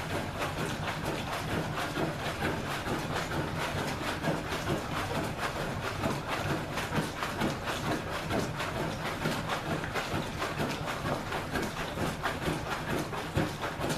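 Hand plunger being worked up and down in a washer of hot soapy water and socks: quick, repeated sloshing strokes of water, several a second.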